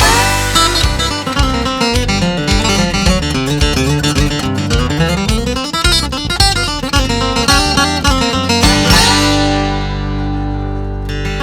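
Instrumental country music led by picked guitar playing quick runs of notes, settling about nine seconds in onto a held chord that rings and slowly fades.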